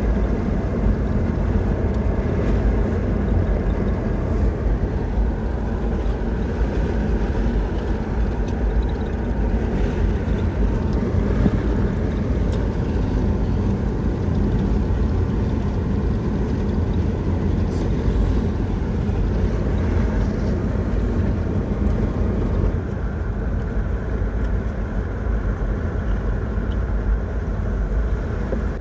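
A running vehicle: a steady low rumble with a faint hum.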